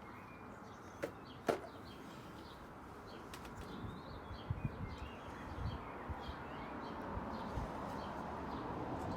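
Quiet outdoor background with faint, scattered bird chirps, two sharp clicks early on and a few soft low knocks of handling.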